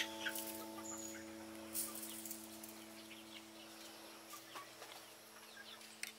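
Faint, scattered clucks and short calls from poultry, with soft rustling clicks. A held musical note dies away in the first second, leaving a faint low tone underneath.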